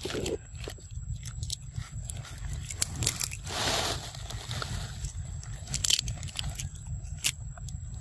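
Macaques chewing close to the microphone: scattered short crunching clicks, with a brief rustling swell about three and a half seconds in.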